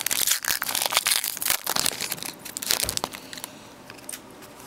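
Foil trading-card pack wrapper being torn and crumpled by hand: a dense crinkling for about three seconds that then dies down to a few light rustles.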